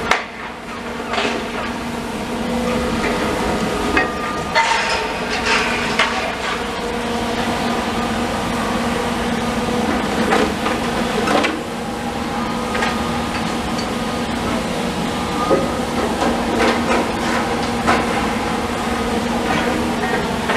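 Heavy demolition machinery running steadily, with repeated sharp clanks and knocks of debris being broken and moved.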